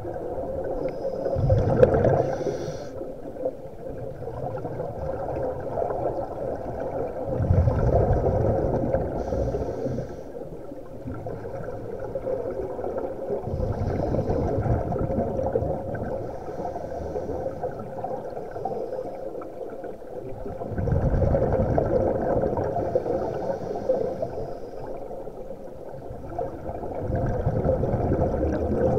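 Scuba divers breathing through their regulators under water: about four surges of bubbling exhaled air, roughly six seconds apart, over a steady low hum.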